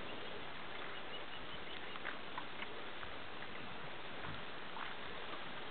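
Steady outdoor hiss with faint, scattered light ticks and rustles from a llama stepping and grazing in grass.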